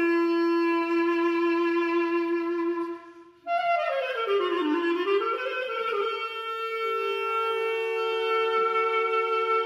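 Instrumental background music: a single melody line of long held notes that breaks off briefly about three seconds in, then returns with a phrase that slides down and climbs back up before settling on held notes again.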